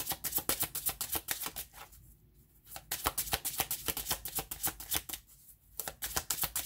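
A deck of tarot cards being shuffled by hand: quick runs of crisp card flicks, about eight a second, in three stretches with short pauses about two and five seconds in.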